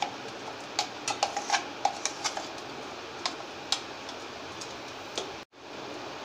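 A metal utensil clinking and scraping against a steel mixer-grinder jar and bowl while thick ground moong dal batter is scooped out: a quick run of sharp clinks over the first two seconds or so, then a few single ones.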